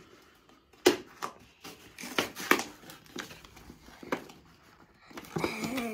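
A cardboard toy box being handled and struggled open: a few sharp knocks of the packaging, the loudest about a second in and at two and a half seconds, with faint rustling between.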